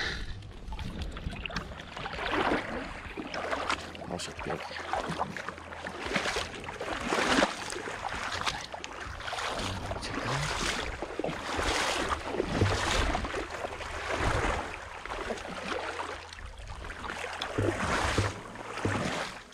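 Wading steps through shallow river water in waders: the legs slosh and splash with each stride, about once a second.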